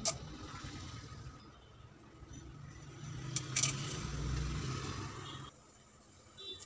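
Whole spices (bay leaf, cloves, cardamom) dropped into hot oil in a pot and sizzling. About three seconds in, cumin seeds and black pepper tip in with a couple of sharp ticks and the sizzle swells, then it drops away abruptly near the end.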